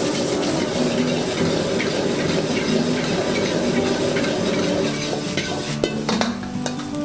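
Egg and shrimp fried rice sizzling in a black steel wok as it is stirred and tossed with a metal ladle, the ladle scraping and clinking against the wok. A few sharper clinks come about six seconds in as the ladle scoops rice out.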